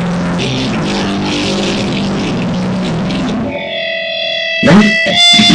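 Loud live rock music with distorted electric guitar. About three and a half seconds in, the playing drops to a single held, ringing note, and a few sharp loud hits come near the end.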